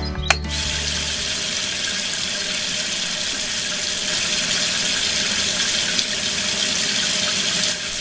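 A steady rushing hiss that cuts in sharply just after the start and stops abruptly just before the end.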